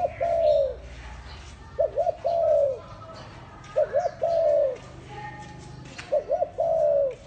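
Spotted dove cooing: a phrase of two short coos and one longer, falling coo, repeated about every two seconds.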